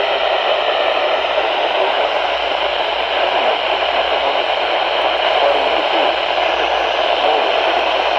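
Radio static: a steady, even hiss from a radio receiver, with no voice coming through.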